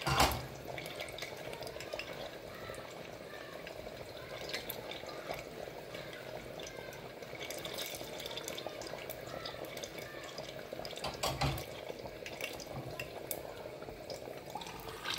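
Battered banana slices frying in hot canola oil in a lidded saucepan: a steady sizzle with light crackling pops. A knock comes just after the start and another about eleven seconds in.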